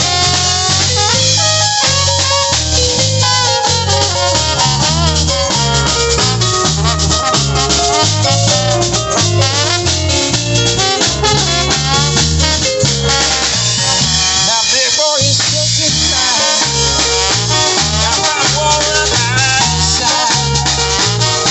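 A small New Orleans-style band of keyboard, drum kit, bass and trombone playing live, with a steady drum beat and bass line under the melody.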